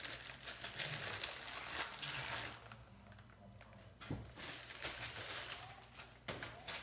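Plastic wrapping and a poly postal mailer crinkling as they are handled and unwrapped, mostly in the first two and a half seconds, with a short knock about four seconds in.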